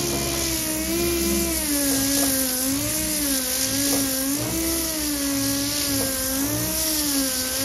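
Pneumatic "mud hog" sander with 80-grit paper running on a painted steel trunk lid, scuffing up the old paint. Its steady whine, with a hiss of air, wavers up and down in pitch about once a second as it is pressed and moved across the panel.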